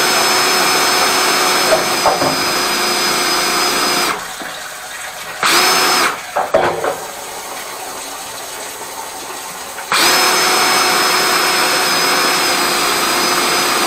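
An electric motor on drain-clearing equipment runs with a steady high whine for about four seconds, cuts off, starts again briefly about six seconds in, then runs steadily again through the last four seconds. A few knocks fall in the pause.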